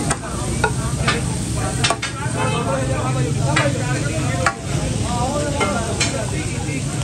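Chicken and green chillies sizzling on a large flat tawa griddle while a metal spatula scrapes and clinks against it, with several sharp clinks at irregular moments.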